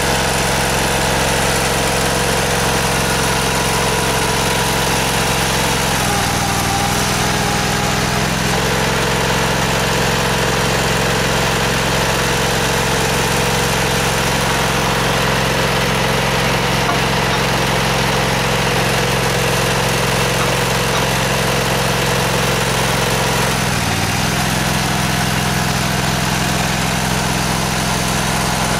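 Engine of a Stone Mason M-50 hydraulic stone splitter running steadily. Its note dips and shifts briefly about six seconds in and again near the end, as the control lever is worked and the hydraulics take load.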